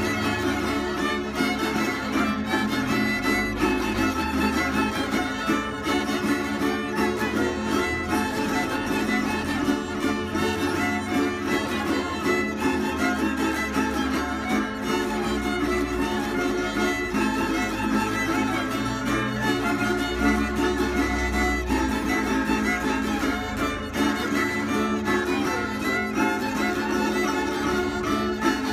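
Several violins and a small guitar playing a folk tune together: the fiddles bow the melody while the guitar strums a steady rhythm underneath.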